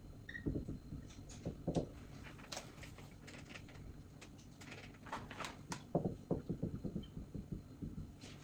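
Faint, irregular light taps and clicks, with a quicker run of taps from about five to eight seconds in.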